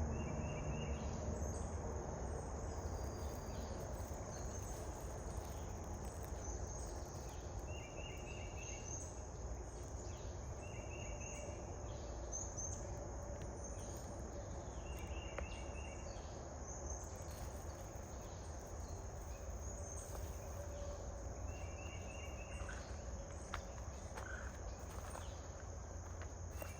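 Insects trilling steadily at a high pitch, with a short chirp repeating about every two seconds and a low steady rumble underneath.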